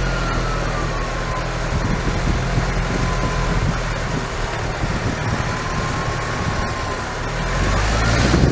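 Car being driven: steady engine and road noise with a thin whine that slowly drops in pitch, holds, and climbs again near the end as the speed changes.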